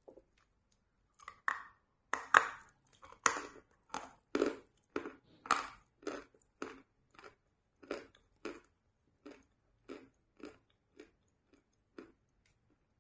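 Close-miked chewing of a white chalk piece coated in wet chalk paste: a few loud, crunchy bites about two seconds in, then steady chewing at about two strokes a second that slowly grows fainter.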